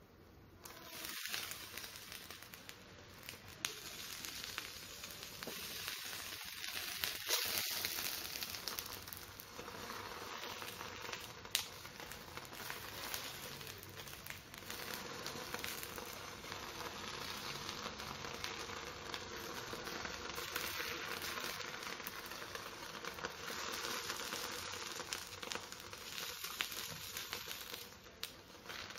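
Sauce-marinated lamb, onions and mushrooms sizzling steadily in their tare on a hot electric hot plate, the sizzle coming up about a second in as the lid comes off. Chopsticks turn the food, with a few sharp clicks.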